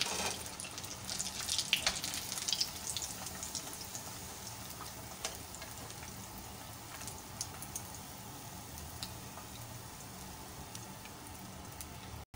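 Bread cone samosas deep-frying in hot oil in a wok: a steady sizzle with crackling pops. The pops are busiest in the first few seconds, then settle to a quieter, even hiss.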